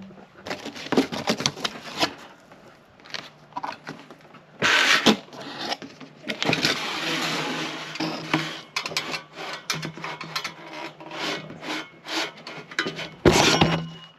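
Cardboard shipping box being torn open and handled, flaps rubbing and crackling, then a stainless steel X-pipe scraping and sliding out of the cardboard, with scattered knocks and rustles and loud handling bursts about five seconds in and near the end.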